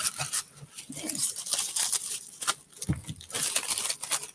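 Packaging being handled: irregular rustling, crinkling and scratching as items are moved about in a shipping box.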